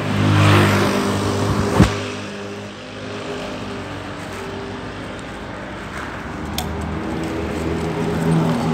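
Motor vehicle engine hum from street traffic, swelling in the first second as something passes, with a single sharp knock about two seconds in.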